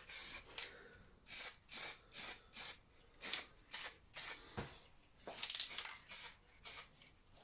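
Matte black spray paint hissing out in short bursts, about two a second, as small plastic model parts are given a coat.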